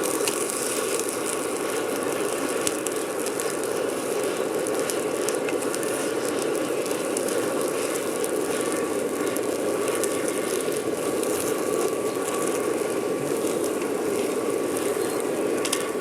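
Steady whirring of the forced-air supply blowing into a charcoal hearth furnace, with a faint constant tone and scattered crackles from the burning charcoal.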